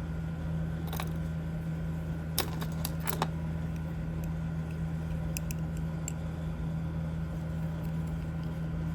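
Small metal jewelry pieces clicking and clinking as they are picked through by hand: a few sharp clicks in the first few seconds, lighter ticks later. A steady low hum runs underneath.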